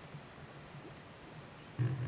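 An engine running with a low hum, which suddenly gets much louder and rumbles near the end.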